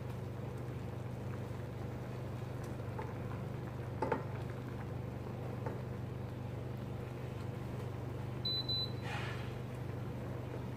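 Steady low hum from the kitchen appliances, with a wooden spoon stirring a thick sauce in a stainless steel pot and clacking against it once about four seconds in. A short high beep sounds near the end, followed by a brief swish.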